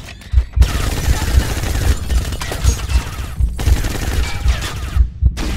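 Sustained automatic gunfire in a film soundtrack, starting about half a second in, dipping briefly past the middle and cutting out for a moment near the end, over a steady pulsing low thump.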